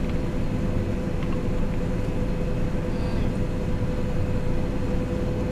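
Combine harvester running steadily: a continuous low engine and machinery drone with a constant whine over it.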